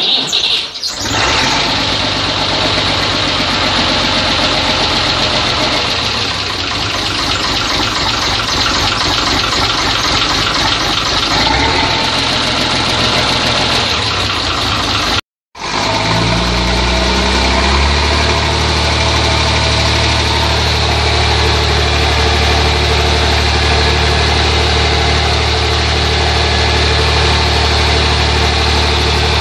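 Tractor engine running at a steady idle, loud throughout. About halfway through the sound cuts out completely for half a second, then the engine is heard again, its pitch settling briefly before it idles evenly.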